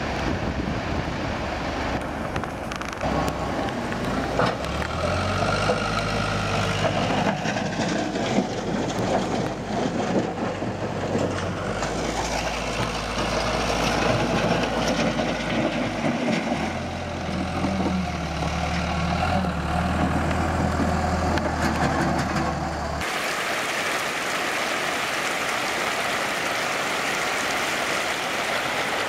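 Rushing water of a flooded waterfall, then a backhoe loader's diesel engine running, its pitch stepping up and down a few times as it works. Near the end it cuts to a steady hiss of running water.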